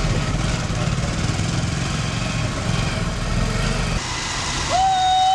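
Motorcycle engine running steadily under a rider and passenger, which drops out abruptly about four seconds in. Just before the end, a loud, steady high tone takes over.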